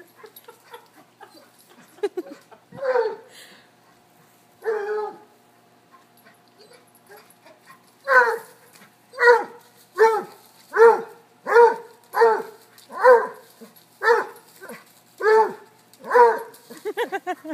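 A dog barking: a few single barks, then from about eight seconds in a steady run of barks, roughly one a second.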